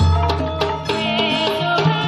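Javanese gamelan music in tayub style: hand-drum strokes over ringing struck bronze metallophones, with a low deep tone that dies away about half a second in.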